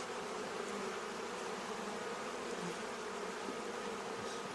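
Many honeybees buzzing in a steady hum.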